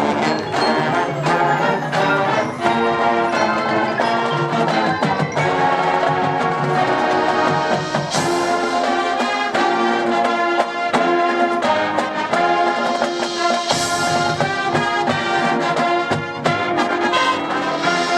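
High school marching band playing, with brass sounding held chords over drum strokes from the percussion section.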